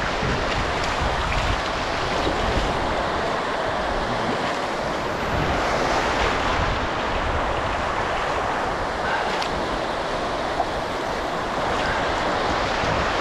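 Shallow surf washing in over sand and seaweed at the water's edge, a steady rushing wash, with wind buffeting the microphone.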